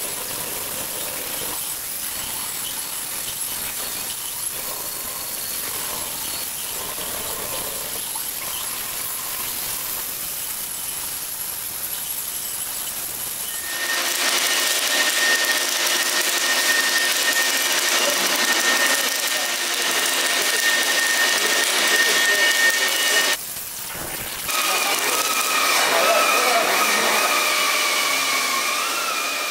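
Robotic arc welding with a DAIHEN D-Arc high-efficiency welding system on thick steel plate: a steady hiss and crackle of the welding arc. About halfway in it gets louder, with a steady high whistle in it. After a short dip near the end, a wavering machine whine takes over.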